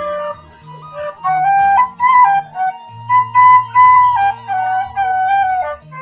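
Bamboo suling flute playing a melody of held notes with slides and ornaments between them, over low bass notes of an accompaniment.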